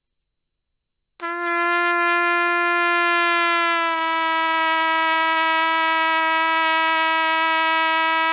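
Trumpet playing one long sustained note that comes in about a second in. About four seconds in, the pitch drops a little and is held there: a bent note, detuned downward by relaxing the embouchure while the air keeps flowing.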